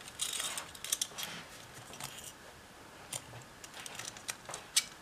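Pliers and small tin-plate parts of a Schuco Examico 4001 toy car's steering mechanism handled on the bench: a light rustle, then a scattering of small metallic clicks, the sharpest near the end.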